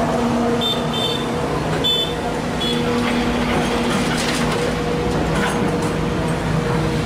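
Sumitomo SH210 hydraulic excavator's diesel engine running steadily under load as it swings and dumps a bucket of soil into a dump truck, with a few short high squeals about one and two seconds in. Around four to five seconds in, dirt and stones rattle into the truck's steel bed.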